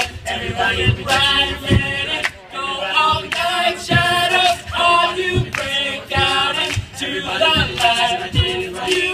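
Male a cappella group singing a song in harmony into microphones, amplified through PA speakers, over a steady low beat.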